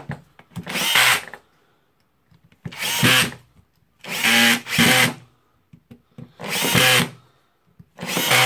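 Cordless drill-driver driving screws into the plastic housing of a Makita DTD146 impact driver: about six short runs of under a second each, with the motor pitch rising as it spins up, and brief pauses between them.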